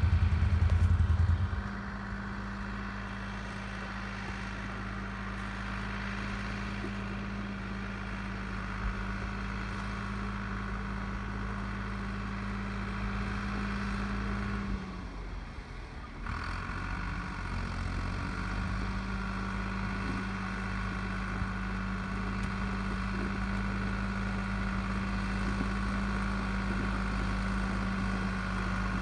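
Farm tractor's diesel engine running steadily while it tows a grader along a gravel forest road. A louder low rumble comes in the first second or so. About halfway through, the engine note drops away for a moment, then comes back.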